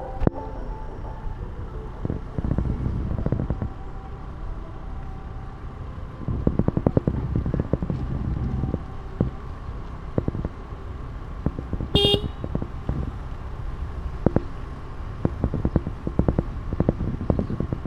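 Low rumble and buffeting of wind and road noise from moving along a street, full of short low knocks. One short vehicle horn toot about twelve seconds in.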